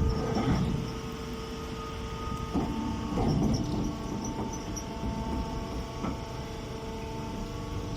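Straw compress baler running: a steady machine hum from its motor, louder in the first second, with a few short rattles.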